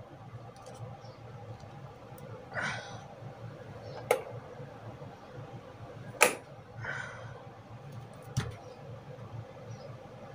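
Three sharp clicks a couple of seconds apart, with two short rustles between them, over a faint steady low hum.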